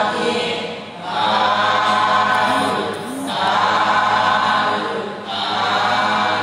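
Group of voices chanting in unison in long, drawn-out phrases of about two seconds each, with short breaks between them: a Buddhist chant at the close of a dharma talk.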